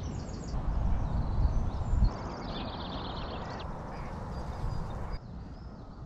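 Ducks quacking in short repeated calls over a low, steady rumble.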